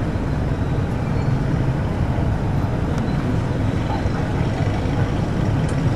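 Steady engine drone and road noise of a bus travelling on the highway, heard from inside the bus.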